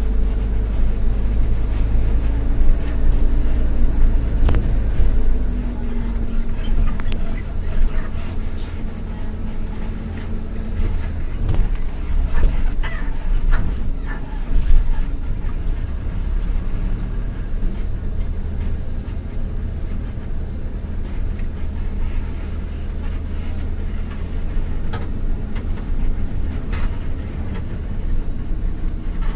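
An old bus's engine running with a heavy low rumble, its pitch shifting a few times in the first ten seconds, with scattered rattles and knocks throughout.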